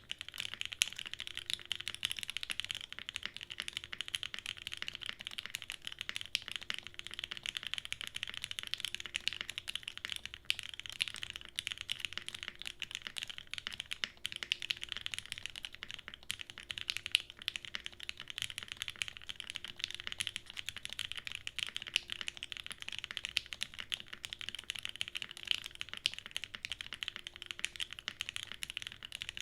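Steady, fast typing on a 7V by Gok custom mechanical keyboard: lubed Gateron CJ linear switches in a polypropylene plate with no dampening, under GMK Hennessey keycaps. Keystrokes follow each other densely, with the odd louder stroke standing out.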